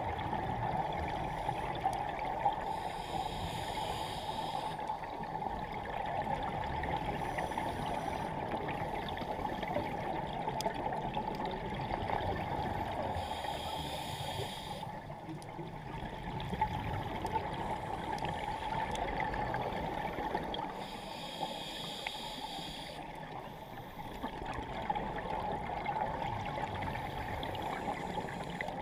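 Underwater camera audio: a steady water hiss, with a scuba diver's regulator exhaust bubbles hissing out several times, each burst lasting a second or two.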